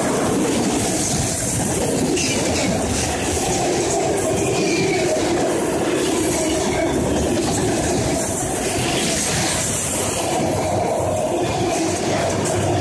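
Autorack freight cars rolling past: a steady rumble and clatter of steel wheels on the rails.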